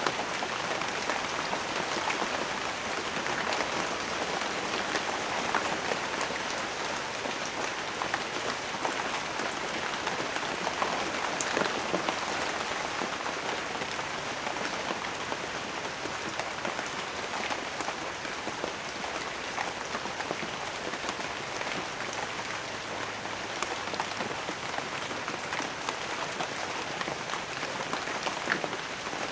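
Steady rain falling, with many individual drops pattering and ticking on a surface.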